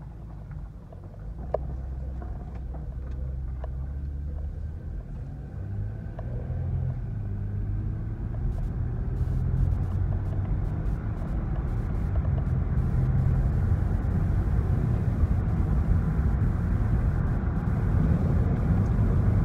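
Toyota Sienna minivan heard from inside the cabin while accelerating: engine hum with tyre and road noise, growing steadily louder as it gathers speed.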